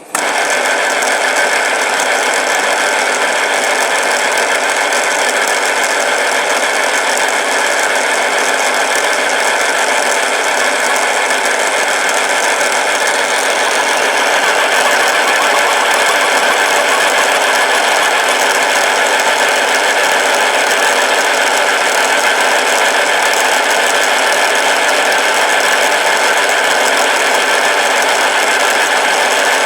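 BV20 benchtop mini lathe switched on and running steadily, its motor and gear train giving a constant mechanical whine with a light rattle. It comes up to speed at once and gets slightly louder about halfway through.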